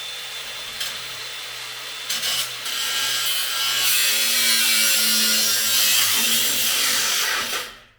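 Power tool cutting through a seized, rusted exhaust fastener: a steady harsh grinding-sawing noise over a motor hum, getting louder about halfway through and cutting off sharply near the end.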